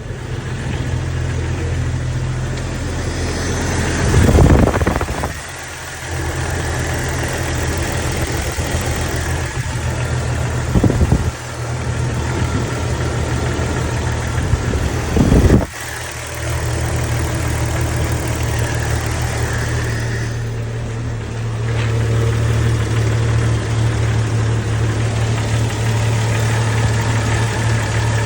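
Jeep Cherokee XJ engine running steadily at idle, surging louder briefly three times. The owner is asking about a noise it has made since an oil change.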